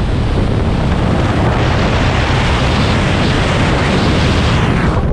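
Airflow from a paraglider in fast flight hitting the camera's microphone: a loud, steady rush of wind noise with heavy low rumble. It cuts off suddenly at the end.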